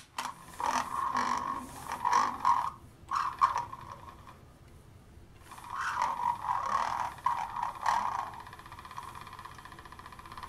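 Vintage G.I. Joe Troubleshooter talking unit playing its recorded voice through a small loose speaker, garbled and not clear, in three broken stretches while its playback speed is adjusted. Near the end it settles into a steady buzzing tone.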